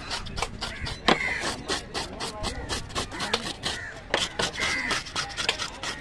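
A hand scaler scraping the scales off a large golden trevally in fast, rasping strokes, about five a second. One stroke, about a second in, is sharper and louder.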